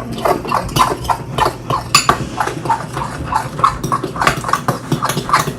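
Homemade glue slime being mixed and squished, a quick, even run of squelching clicks, about four a second.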